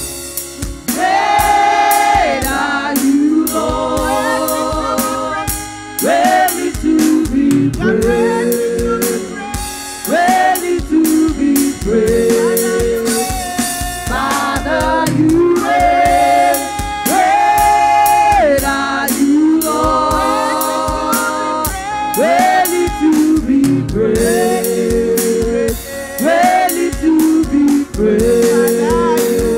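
Women's gospel vocal group singing in harmony into microphones, with a drum beat underneath.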